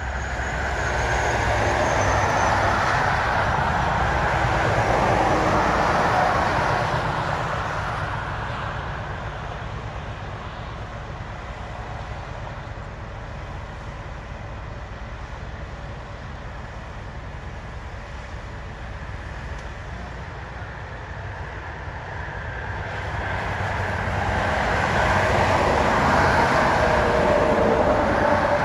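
Highway traffic passing close by: one vehicle swells up and fades away over the first several seconds. Near the end a tractor-trailer's tyres and engine rush past. A steady low rumble runs under both.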